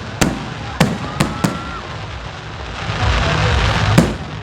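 Fireworks and firecrackers going off: a quick string of sharp bangs in the first second and a half, then a crackling hiss that builds about three seconds in and ends in a loud bang.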